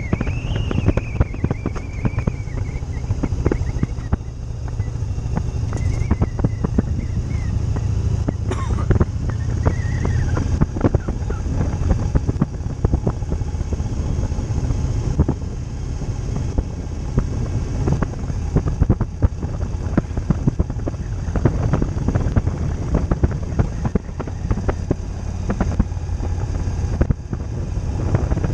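Motorcycle riding at road speed: a steady low engine and road drone, with gusty wind noise on the microphone.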